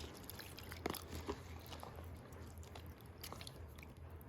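Faint clicks and gritty crunches of a container of washed rice being handled, a few sharp ones about a second in and again past three seconds, over a low steady hum.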